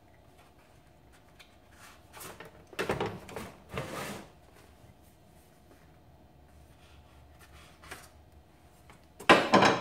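A survival knife drawn from its leather sheath and used on a cardboard box: a few short scraping, rustling bursts about two to four seconds in as the packaging is cut and handled, over a faint steady hum.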